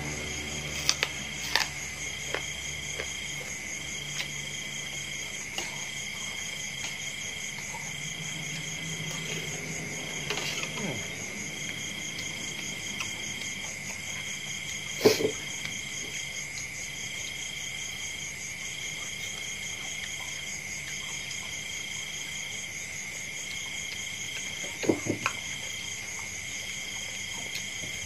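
Crickets chirping steadily: one constant high trill, with a second, higher trill pulsing on and off about once a second. A few short clicks and knocks of eating, from a spoon and hand working in a ceramic bowl, sound over it, the loudest about halfway through.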